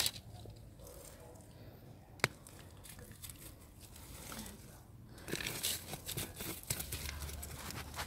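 Hands digging and scraping in loose, stony soil while unearthing sweet potatoes: crumbling earth and crackling roots. There is a sharp click about two seconds in and a busier stretch of scraping from about five to seven seconds in.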